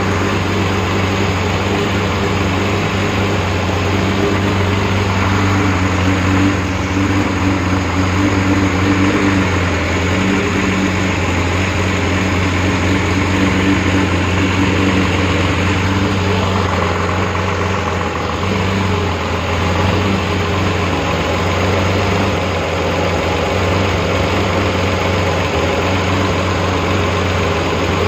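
Rebuilt Porsche 911 3.2 Carrera air-cooled flat-six idling steadily on an engine test stand, with its belt-driven cooling fan turning.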